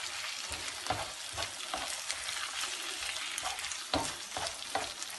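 Diced green peppers and tomato sizzling in oil in a frying pan, with a steady hiss, while a spatula stirs them, scraping and knocking against the pan at irregular moments.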